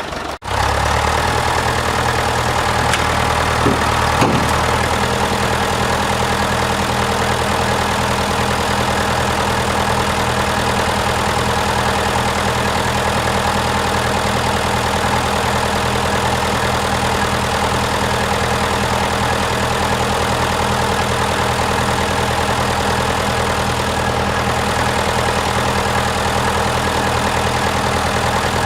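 Tractor engine idling steadily, with a couple of short knocks about three and four seconds in.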